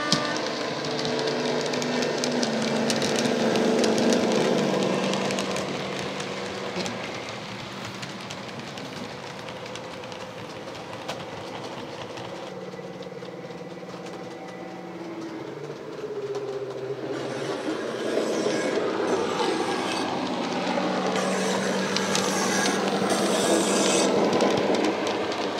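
Model Class 55 Deltic locomotive's DCC sound decoder playing a Deltic twin-engine diesel sound through the model's onboard speaker as the train runs, with the model's wheels clicking on the track. The sound grows louder again about two-thirds of the way through as the locomotive comes nearer.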